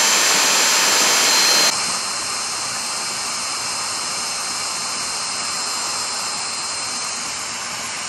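Dyson cordless handheld vacuum cleaner running steadily with a high whine, its nozzle held on the outlet of a diaphragm gas meter and drawing air through it. Just under two seconds in the sound drops to a quieter, duller level and goes on steadily.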